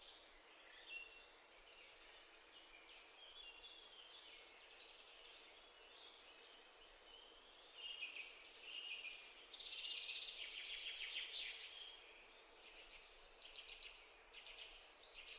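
Faint birds chirping and twittering, busiest and loudest about ten seconds in.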